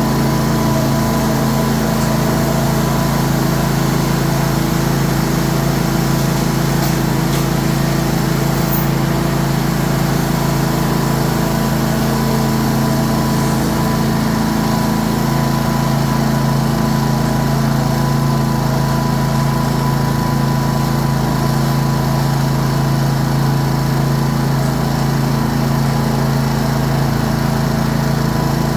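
Cub Cadet RZT 54 zero-turn mower's engine running steadily, a test run after a new drive belt was fitted to check whether the slapping knock comes back.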